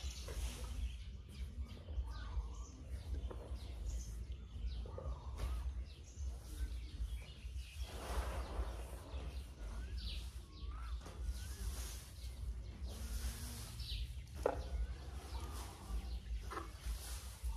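Outdoor ambience with birds chirping on and off over a steady low rumble, and a few short sharp knocks late on while an elephant feeds from a plastic bucket.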